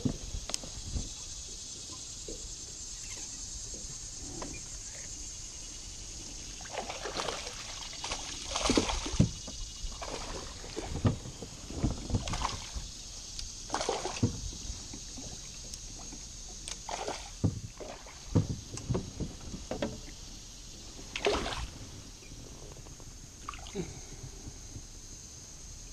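A hooked fish splashing and thrashing at the water's surface beside a small boat as it is brought in and scooped into a landing net, with irregular bursts of splashing and sloshing through the middle, the loudest about nine and eleven seconds in. A steady high hiss runs underneath.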